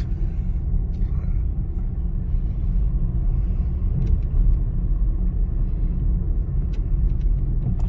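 A car driving at steady speed: a steady low rumble of engine and road noise.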